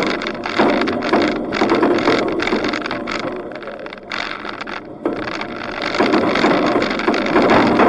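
A 4WD driving along a dirt bush track, heard from a camera on its roof rack: wind buffeting the microphone over the vehicle's running noise and rattles. The noise eases off about halfway through, then picks up again.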